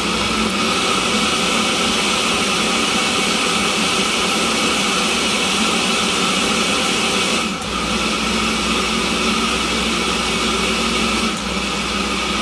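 Countertop blender motor running steadily at speed, blending a thick purée in its glass jar, with a brief dip in loudness about halfway through.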